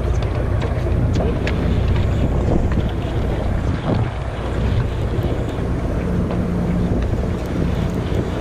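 Steady low drone of a sportfishing boat's engine, with wind buffeting the microphone.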